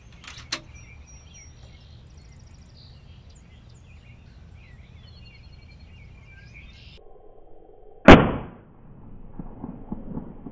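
A single shot from a PCP air rifle about eight seconds in: one sharp, loud crack that dies away within half a second. Before it there is a light click near the start and faint bird chirps in the background.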